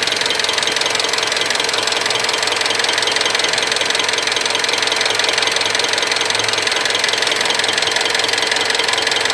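Mitsubishi 4D56 four-cylinder turbodiesel idling steadily with a rapid, hammering knock. The knock stops when one injector's electrical connector is unplugged, so the owner suspects a faulty injector.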